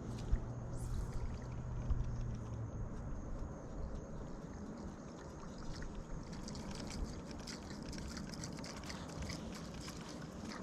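Water trickling and splashing against a boat's hull, with a steady low hum that stops about three seconds in and scattered small ticks later.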